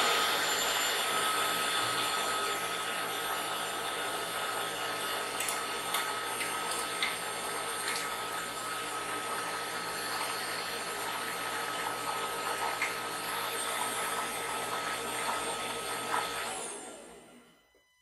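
Bosch Cookit kitchen machine's universal blade chopping cherries at speed 13: a steady motor whir and whine with light clicks, loudest at the start. Near the end the motor runs down and stops as the 20-second chop finishes.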